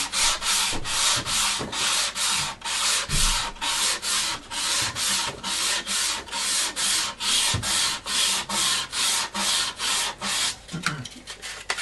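Hand sanding of an obeche-veneered model glider wingtip with sandpaper on a dense foam pad: quick, even back-and-forth strokes, about three a second, that stop about ten and a half seconds in.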